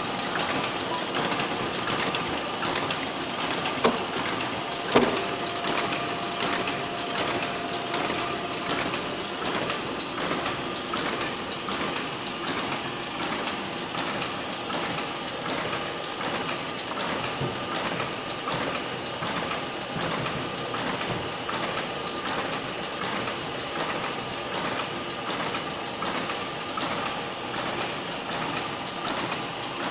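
Stahl KC 66 paper folding machine running with a steady, evenly repeating mechanical clatter. Two sharp knocks come about four and five seconds in, the second the loudest, followed by a faint steady tone for a few seconds.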